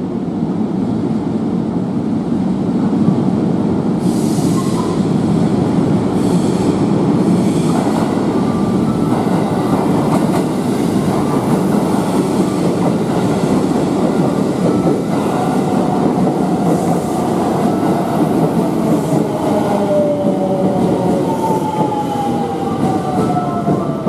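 Electric passenger train pulling into a terminus platform, slowing as it comes in: a steady rumble of wheels on rail, with clicks over rail joints, then wheel squeal that falls in pitch through the second half.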